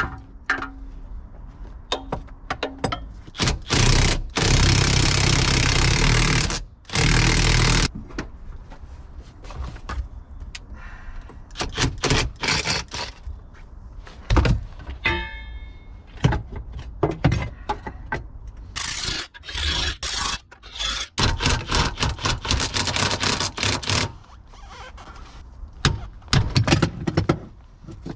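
Cordless power tool running in two bursts, about four and seven seconds in, with many clanks, knocks and scrapes of metal tools and parts around them as bolts are worked on an engine.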